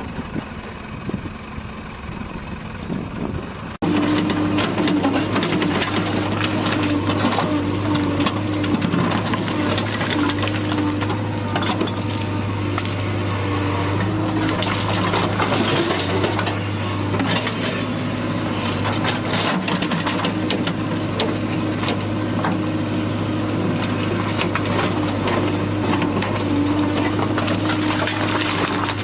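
Heavy diesel engine running steadily, with frequent clatter and knocks over it. The sound changes abruptly about four seconds in, where it becomes louder and steadier.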